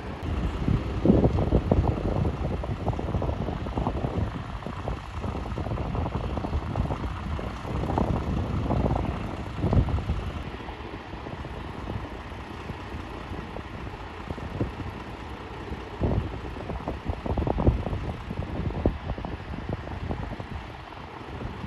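Wind buffeting the microphone outdoors: a low, gusty rumble that swells and drops irregularly, strongest in gusts about a second in and around 8 to 10 and 16 to 18 seconds in.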